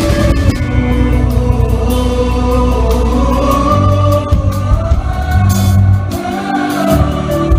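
Band playing a Christian worship song: voices singing the melody over bass and drums, with a steady beat of drum and cymbal hits.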